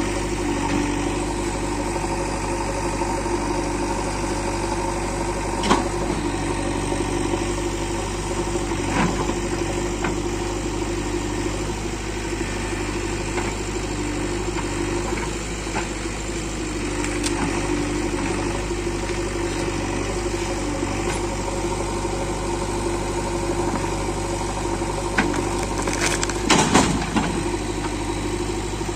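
JCB 3DX backhoe loader's diesel engine running steadily while digging out a tree root. A few sharp knocks sound over it, the loudest a cluster near the end.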